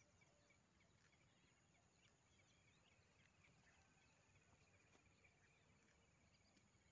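Near silence: faint outdoor ambience by a pond, with scattered faint chirps and a faint rapid trill starting about two seconds in and fading out near the end.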